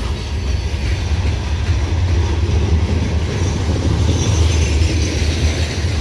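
Loaded coal cars of a freight train rolling past close by: a steady heavy rumble of steel wheels on the rails.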